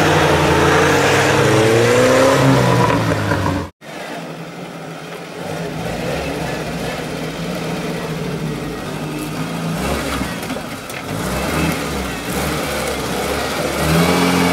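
UAZ-469 off-road vehicle's engine revving hard under load, its pitch climbing, as it works through mud. After a cut about four seconds in, the engine sounds quieter and farther off as the vehicle drives along a ditch, then steady and louder again near the end as it leans into the ditch.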